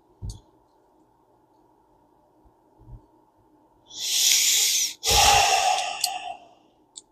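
A short knock, then a deep breath in and a heavy breath out close to the microphone, each lasting about a second.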